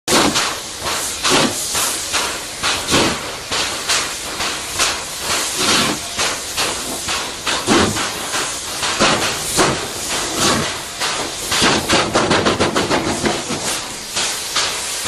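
Steam locomotive working a heavy train, its exhaust chuffing in loud, uneven beats over a continuous hiss of steam; the beats come quicker for a short run about twelve seconds in.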